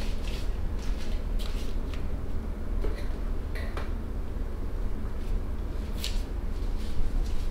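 Scattered light clicks and rustles of close handling over a steady low rumble, with one sharper click about six seconds in.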